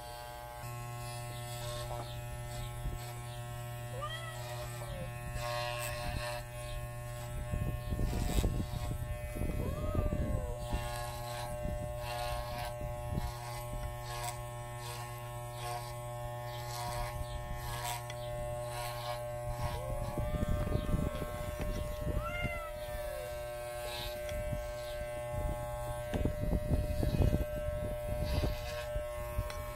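Wahl electric hair clippers, used without a comb attachment, buzz steadily as they shave matted fur off a calico cat. The cat meows in protest several times, short arching cries, and there are louder, rougher stretches where the clippers work through the mats.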